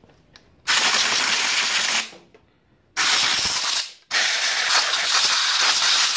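Aerosol spray can hissing in three bursts, the last and longest starting about four seconds in, as a cleaning spray is applied to a small two-stroke engine's cylinder to spruce it up.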